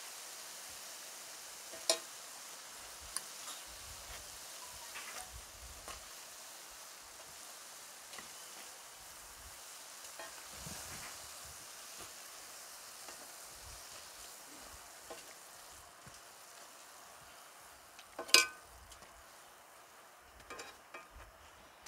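Ciuriș dough pastries deep-frying in hot oil in a pan, making a steady sizzle that grows fainter near the end. A few sharp clicks break through, the loudest about eighteen seconds in.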